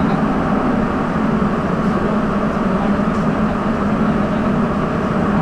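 Rubber-tyred Sapporo subway train running through its tunnel, heard from inside the car as a steady, even running noise with no breaks or distinct tones.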